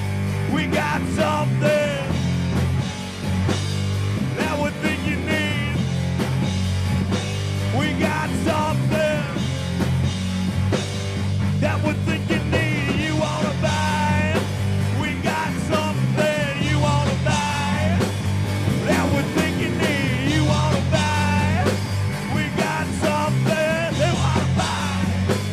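A rock band playing live, with electric guitar, electric bass and a drum kit, and a man singing over them.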